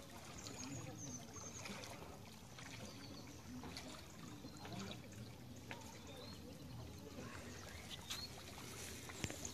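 Faint trickle of spring water running out of a large pipe outlet into a pool, with a few short high chirps now and then.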